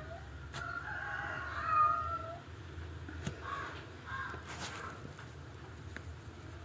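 Cat meowing: a drawn-out call about a second in, then a few shorter calls.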